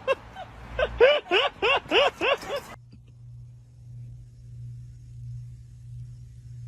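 An animal's rapid, repeated yelps, about three a second, cut off abruptly about a third of the way in, followed by a steady low hum like a running engine.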